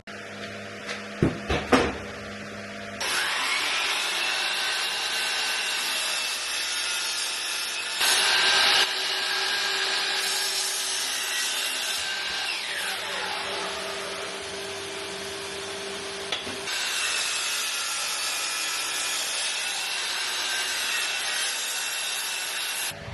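A few knocks, then an electric power tool spins up about three seconds in and runs steadily while cutting or working wood. Its pitch dips and its sound shifts partway through as the load changes, and it cuts off just before the end.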